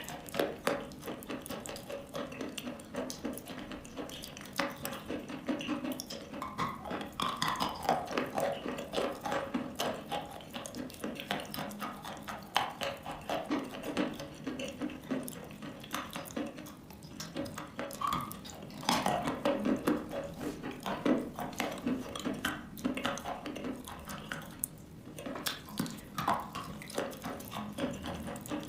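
Wet chalk crunching: a dense run of small, irregular clicks and crackles, with a few brief squeaky sounds.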